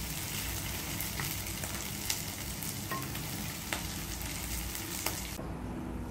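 Sliced onions and garlic sizzling in hot oil in a nonstick wok while being stirred with a wooden spatula, with a few sharp knocks of the spatula against the pan. The sizzle cuts off abruptly about five seconds in, leaving a quieter sound.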